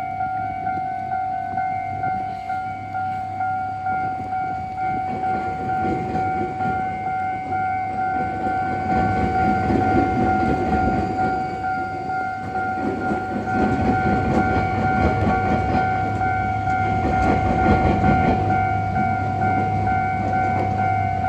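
Level crossing alarm ringing with a steady repeating electronic tone, while an Iyo Railway train passes over the crossing from about six seconds in. Its wheels clatter over the rail joints and the diamond crossing, loudest around ten seconds and again near eighteen.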